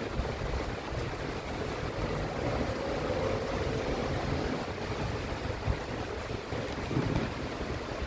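Steady hiss of rain falling, with an uneven low rumble underneath.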